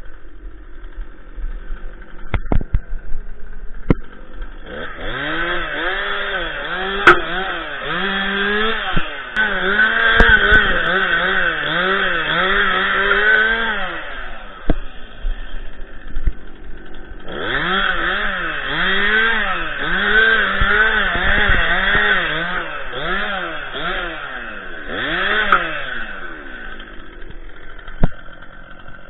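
Stihl MS 261 two-stroke chainsaw limbing: it idles at first, then cuts branches at full throttle in two long stretches of rapid rises and dips in engine pitch, dropping back to idle between them and near the end. A few sharp knocks sound over the idle.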